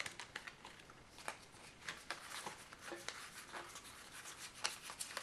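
Tarot cards being handled and sorted by hand: faint sliding and rubbing of card stock, with light, irregular clicks as cards are picked up and set down.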